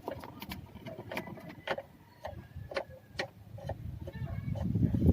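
Socket wrench tightening the bolts of a newly fitted billet engine mount: scattered sharp clicks at an uneven pace, with a low rumble building near the end.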